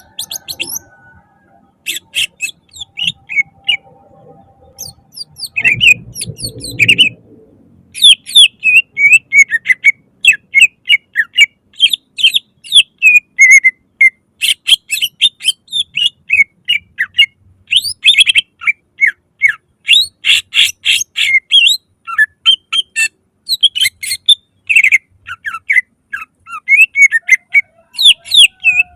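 Green leafbird (cucak ijo) singing a loud, fast run of sharp chirping notes, sparse at first and then a dense, unbroken stream from about eight seconds in. There is a brief low thump about six seconds in.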